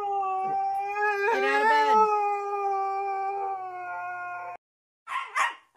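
Siberian husky howling: one long, steady howl that sags slightly in pitch and cuts off suddenly about four and a half seconds in.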